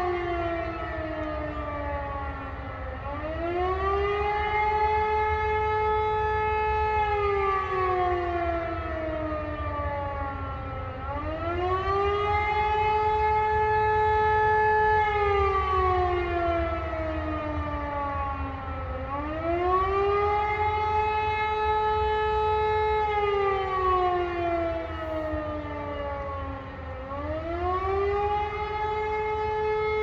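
Civil defence siren sounding Austria's 'Alarm' signal: a wailing tone that rises, holds and slowly falls, repeating about every eight seconds. This rising and falling signal warns of imminent danger.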